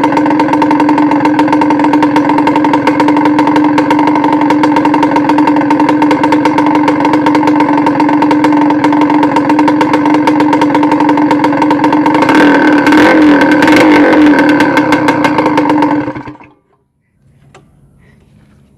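Kawasaki Ninja RR 150 single-cylinder two-stroke engine running loud and steady through an expansion-chamber exhaust with its end cone and silencer insert removed. The sound swells briefly with a little throttle about twelve seconds in, then the engine is switched off and stops suddenly around sixteen seconds.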